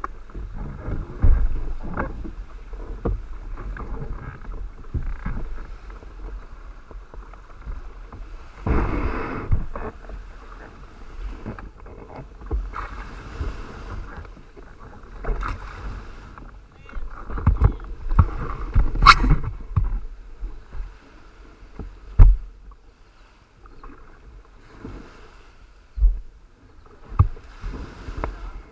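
Wind buffeting the microphone and water splashing around the hull of a Hobie Cat catamaran, in uneven gusts. Several sharp knocks come in between, the loudest about two-thirds of the way through.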